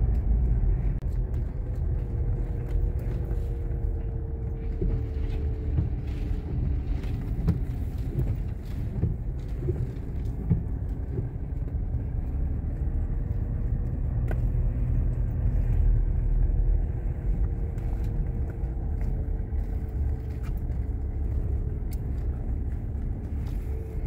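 Car driving at low speed, heard from inside the cabin: a steady low rumble of engine and tyres, with a faint engine hum that drifts slowly up and down in pitch.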